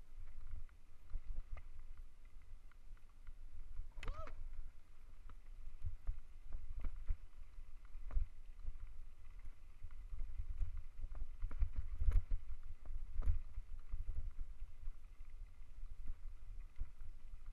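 Hardtail mountain bike rolling fast down a loose gravel dirt road: wind buffeting the microphone as a heavy, uneven rumble, with the tyres and frame rattling over small stones. A short squeak about four seconds in.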